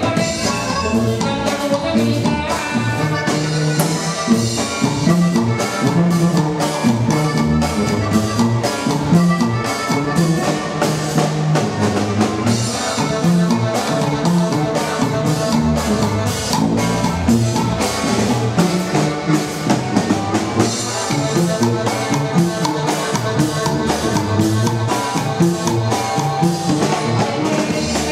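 Live band playing: a sousaphone carrying the bass line, a drum kit keeping a steady beat, and an electric archtop guitar.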